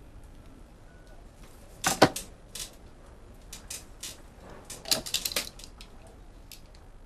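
A run of sharp clicks and taps at irregular intervals. The loudest is about two seconds in, and a quick cluster follows around five seconds in.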